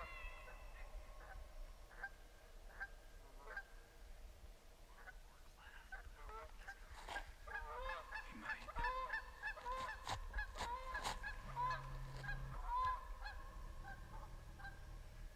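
Many short, pitched animal calls, each rising and falling in pitch, a few at first and then several overlapping at different pitches from about seven seconds in.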